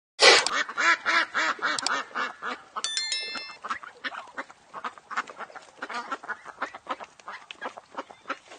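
Ducks quacking in a rapid run of calls, several a second. The calls are loudest at the start and grow softer.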